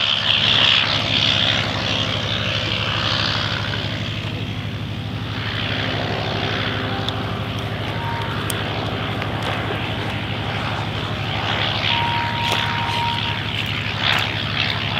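Blériot XI monoplane's piston engine and propeller running steadily in flight overhead.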